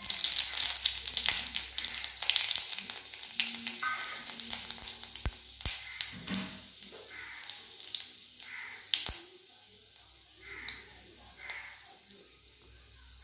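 Panch phoron seeds sizzling and crackling in a little hot oil in a kadai, loudest as they go in and then fading steadily as the tempering finishes.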